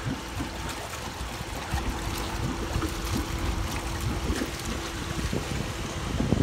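Water trickling and lapping over a low rumble, with scattered small knocks; a steady hum comes in about two seconds in.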